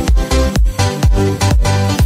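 Electronic dance-style background music with a steady kick drum beat, a little over two beats a second, under sustained synth notes.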